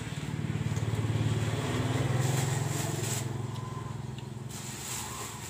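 A motor vehicle's engine running past, a steady low hum that grows louder to about two seconds in and then fades away.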